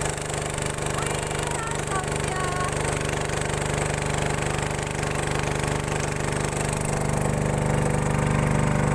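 Small boat engine driving a wooden boat, running steadily at an even pitch and growing a little louder over the last couple of seconds.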